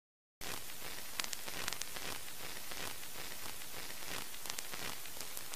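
Steady static hiss with scattered crackles and clicks, starting suddenly about half a second in after silence.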